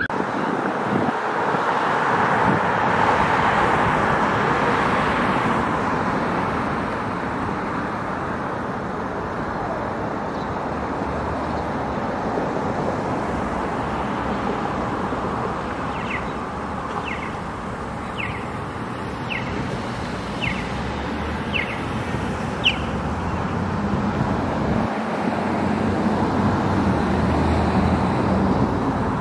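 City street traffic: cars passing on the road, a steady wash of tyre and engine noise that swells near the start and again near the end. In the second half, seven short high chirps come about a second apart.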